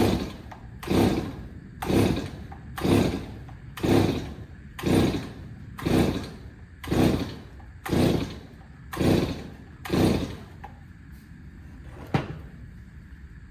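Stihl 024 chainsaw being pull-started on half choke: about ten steady starter-cord pulls, roughly one a second, the engine turning over without ever firing, because no fuel is reaching it through a broken fuel line. A single sharp click follows near the end.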